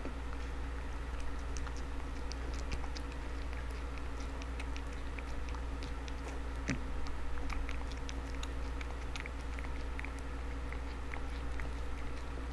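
Domestic cat eating wet food from a paper bowl: many small, irregular wet clicks of chewing and licking, over a steady low hum.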